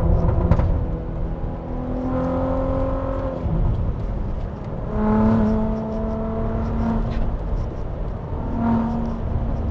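Turbocharged 3.2-litre VR6 in a Mk IV GTI accelerating hard through the gears, its pitch climbing and then dropping at each upshift, about three pulls.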